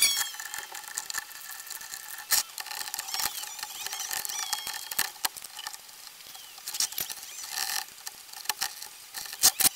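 Irregular clicks and knocks of 3D-printed plastic clock parts being handled and fitted, as the top frame plate is set down over the steel shafts of the movement. A few louder knocks stand out, about two and a half, five and nine and a half seconds in.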